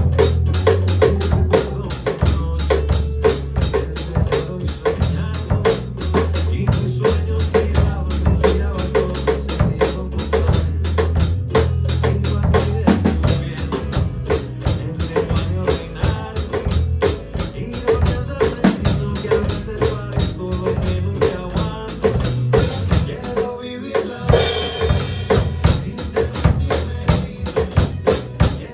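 Acoustic drum kit played in a steady, busy groove (bass drum, snare and cymbals) along with a recorded pop song. The beat drops out briefly about 24 seconds in, then comes back with a cymbal crash.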